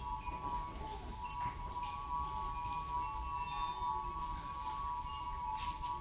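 Crystal glasses played as a musical instrument: a cluster of close, held tones, with short glassy pings higher up.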